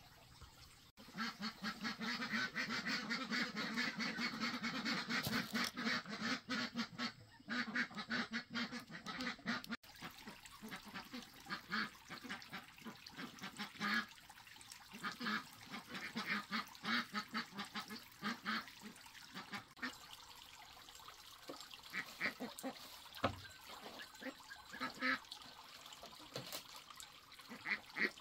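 Ducks quacking, many calls over one another for the first several seconds, then thinning to scattered separate quacks after about ten seconds.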